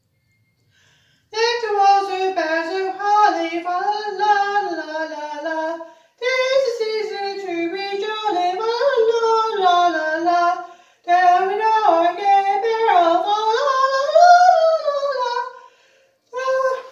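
A single high voice singing unaccompanied, in three long phrases with short silent pauses between them, then starting a fourth near the end.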